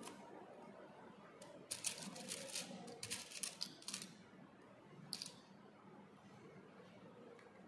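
Paper strips crinkling as fingers press and adjust them on an insect spreading board. There is a run of quick, faint crackles from about two to four seconds in, and one more shortly after five seconds.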